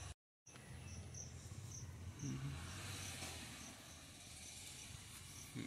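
An insect chirping steadily in short, high chirps about twice a second, faint over a low background rumble, with a brief break near the start.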